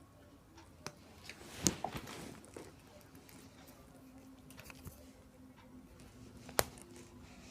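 Faint clicks and light knocks of small parts and tools being handled on a workbench, with a louder knock about a second and a half in and a sharp click near the end. A faint steady hum comes in about three seconds in.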